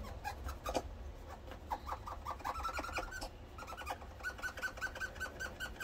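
Quick runs of short, high squeaks from the small rubber-tyred idler wheel of a VCR as it is turned by hand and rubbed on its rubber surface.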